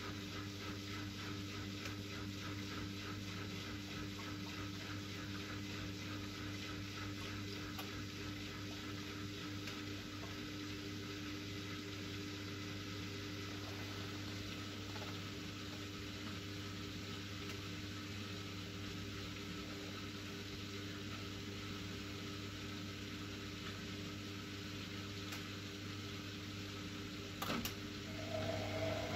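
Siemens Siwamat Perfecta SL washing machine on a delicates wash: a steady hum with a hiss like water. A click comes near the end, and then the sound grows louder with a new tone.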